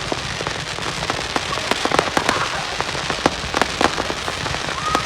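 Aerial fireworks going off in quick, irregular succession: sharp bangs and cracks over a steady crackling hiss.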